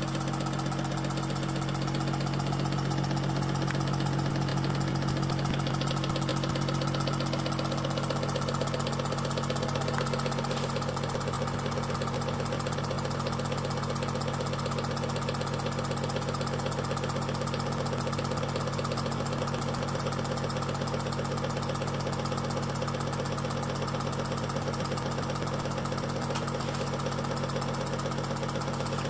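Peake Engines No. 3 model steam engine with a sun-and-planet drive running steadily, its fast, even exhaust beats over a steady hum.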